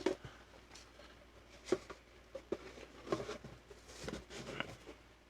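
Booster packs and the cardboard Elite Trainer Box being handled: a few separate light knocks and taps with soft rustling between them.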